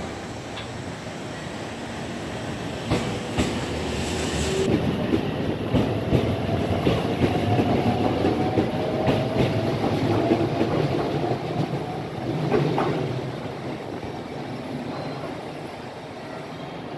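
A JR Central 313 series electric train pulls away and passes close by, its motors whining in a slowly rising tone while its wheels click over the rail joints. The sound is loudest as the cars go past and fades as the train moves off near the end.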